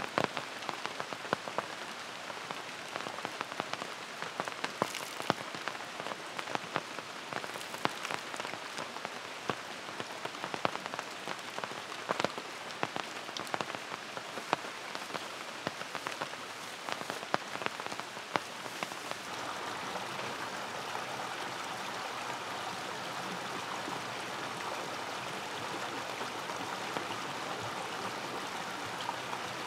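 Rainforest rain falling, with many sharp drops tapping close by. About two-thirds of the way through, the taps stop and a steady, even rush of water takes over.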